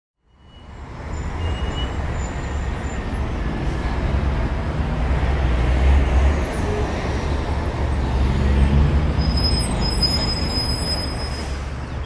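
Jungle ambience sound effect fading in over the first second: a dense, steady noise bed with a heavy low rumble. Faint high-pitched calls are scattered through it, and a few short high chirps come near the end.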